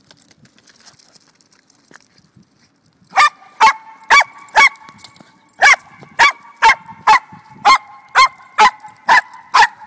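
Jack Russell terrier barking in a fast, steady run of sharp barks, about two a second, starting about three seconds in, with a thin high whine held between the barks.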